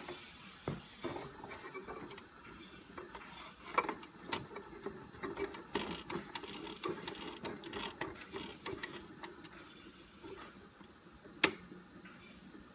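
Sylvania tube AM clock radio off-station between broadcasts: faint, irregular crackling and clicks, with one sharper click near the end.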